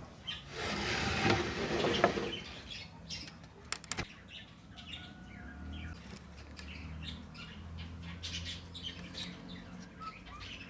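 Faint birds chirping over a low steady hum, with a couple of sharp clicks about four seconds in.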